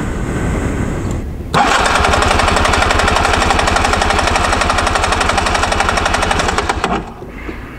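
Honda Pantheon 125 two-stroke engine turned over by its electric starter with the spark plug out and a compression gauge fitted, wide-open throttle, for a compression test; it spins without firing in a fast, even rhythm. It grows loud about a second and a half in and stops near the end. The gauge reads just over 10 bar, a little under the 11.7 bar that the service manual asks for.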